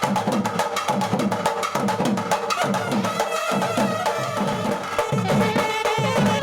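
Instrumental passage of Indian devotional music: a drum beating a steady rhythm of about two low strokes a second under a melody line.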